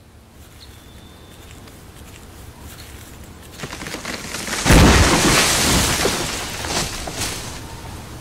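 A tree coming down. Cracking builds, then a heavy crash comes a little past halfway through, followed by a few sharp snaps as branches settle.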